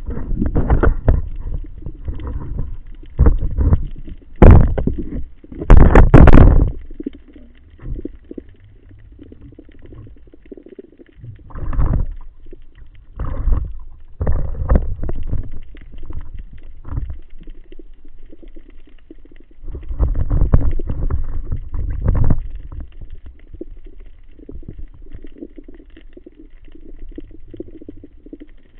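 Water sloshing and gurgling around an underwater camera, in irregular surges. Several strong rushes come in the first several seconds, then softer swells.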